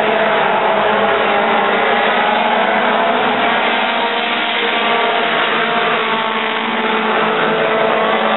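Several dirt-track stock cars racing together around the oval, their engines running hard in a steady, loud blend whose pitches waver as the cars go through the turns.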